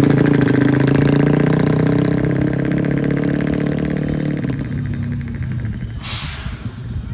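A sleeper coach bus's diesel engine running loud and steady, then easing off after about four seconds. A short burst of hissing air comes about six seconds in.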